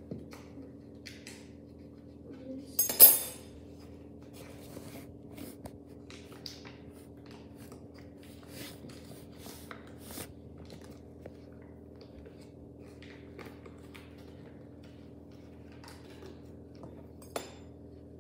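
Kitchen utensils and dishes clinking and knocking while baking: scattered small taps and scrapes, with a loud clatter about three seconds in and a sharp clink near the end.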